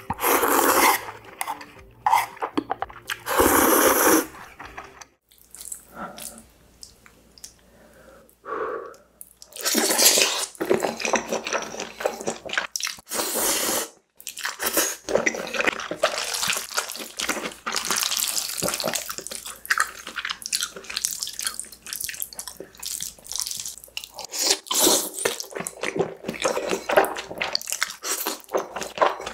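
Close-miked wet slurping of noodles with chopsticks, mukbang style: first a few loud pulls of instant ramen, then after a quieter stretch of several seconds, near-continuous slurping and chewing of saucy black-bean noodles (jjajangmyeon).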